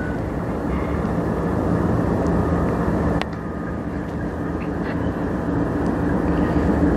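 Diesel locomotives of an approaching freight train, a steady low engine drone that slowly grows louder. There is a short click about three seconds in.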